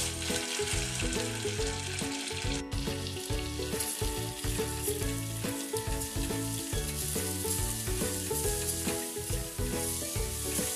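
Melted butter sizzling in a stainless steel pot as rice is poured in and stirred with a silicone spatula, the rice toasting in the butter. Background music plays over it.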